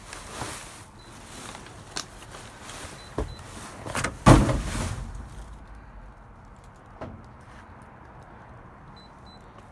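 Rummaging through trash in a dumpster: rustling, clicks and knocks, with a heavy thump about four seconds in. Short, faint, high-pitched beeps come from something among the trash, once before the thump and twice near the end.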